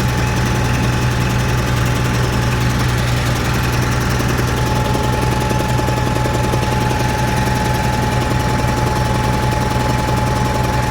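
Caterpillar 3306 natural-gas inline-six industrial engine running steadily and loudly with a miss: one cylinder is not firing, traced to a coil giving no spark on number 6.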